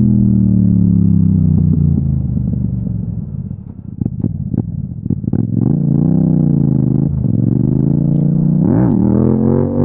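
Yamaha MT-07's 689 cc parallel-twin engine, heard from the bike while riding. The revs fall off the throttle for about three seconds, with a run of sharp crackles as it slows. It then pulls again, and a quick rev blip comes near the end.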